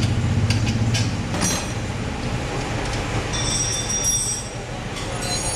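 Metal tools working on a motorcycle's rear wheel and sprocket assembly: several sharp metallic clinks in the first second and a half, then about a second of high metallic squealing ringing a little past three seconds in, with a low steady hum underneath at first.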